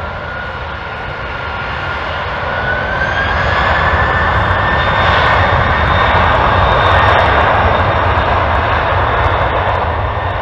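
Four GE CF6-80C2B1F turbofans of a Boeing 747-400 freighter at takeoff thrust during the takeoff roll: loud, steady engine noise with a high whine that rises in pitch about three seconds in. It grows louder as the jet passes, peaks midway and eases slightly near the end.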